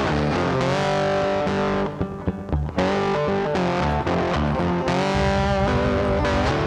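Background rock music: distorted electric guitar with bass and a steady beat, briefly thinning out about two seconds in.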